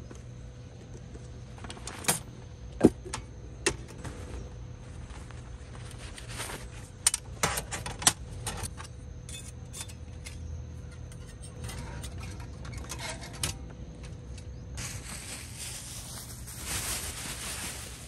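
Small hard objects clinking and clattering as they are handled: scattered sharp clinks, the loudest about three seconds in and a quick cluster around seven to eight seconds in.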